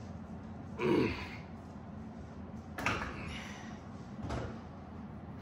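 A man's strained, groaning exhale under a bench-press barbell, falling in pitch, about a second in, followed by two shorter breathy exhales.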